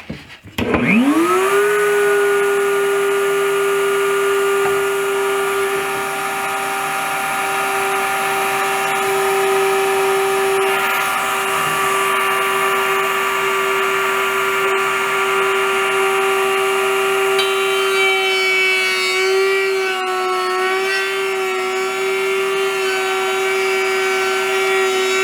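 Woodworking router starting up, its whine rising to a steady high pitch within about a second, then running steadily as it cuts a stopped groove for a T-bolt. The pitch wavers slightly in the last several seconds as the bit works the wood.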